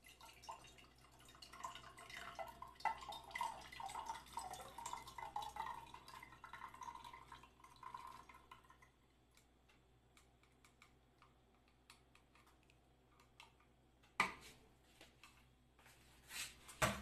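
Oil poured from a saucepan through a small metal strainer into a glass jar, trickling and dripping for roughly the first nine seconds. A sharp knock comes about fourteen seconds in, with a few more clatters near the end as the cookware is set down.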